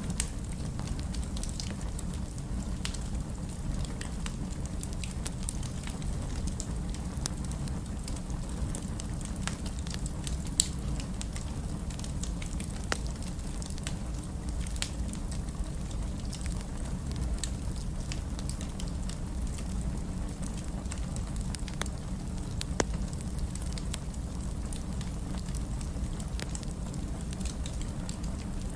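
Wood fire crackling in a fireplace: a steady low rumble under a stream of small sharp pops, with a few louder snaps scattered through.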